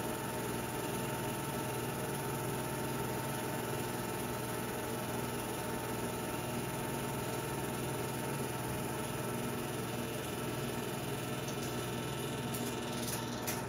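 Film projector running: a steady mechanical motor hum with several fixed tones, with a few light clicks near the end.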